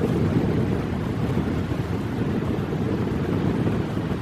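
Strong force-6 wind buffeting the microphone: a heavy, uneven rumble with a steady hiss above it.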